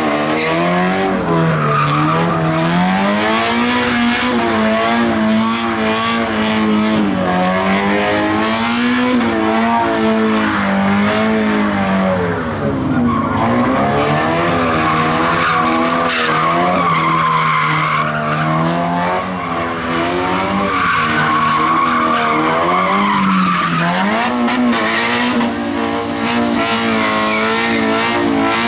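A vehicle doing donuts: the engine is held at high revs that rise and fall continuously while the tires screech. The tire screech is strongest through the middle of the stretch.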